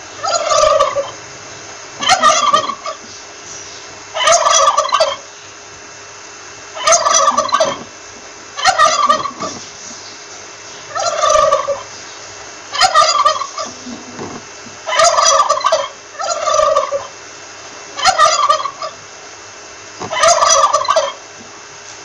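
Wild turkey tom gobbling repeatedly: about eleven rattling gobbles, each about a second long, roughly every two seconds.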